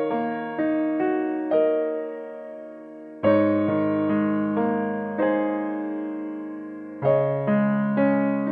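Background music: slow, gentle piano, single notes and chords struck about once a second and left to fade.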